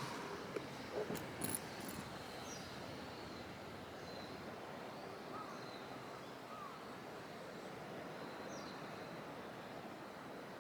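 Faint outdoor ambience: a steady background hiss with a few short, faint bird chirps scattered through it, and a few small clicks in the first two seconds.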